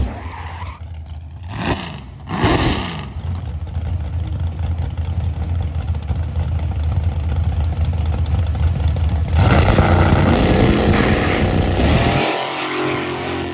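Drag-racing cars making an eighth-mile run, their engines revving hard under acceleration. The sound jumps up sharply about two and a half seconds in and swells louder again for a few seconds near the end before falling away.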